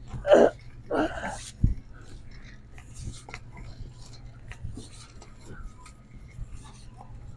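Two short voice sounds and a brief low thump in the first two seconds, then a faint murmur of store background.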